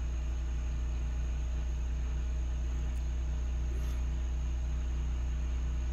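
Steady low mechanical hum with a few even tones over it, unchanging throughout.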